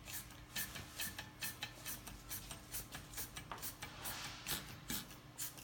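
Light metallic clicking and tapping, about three or four clicks a second: the wastegate flap of a removed BMW N54 turbocharger being worked by hand and rattling against its seat. The wastegate has play in it and does not always seat, which the owner takes for the cause of intermittent low boost (fault P30FF).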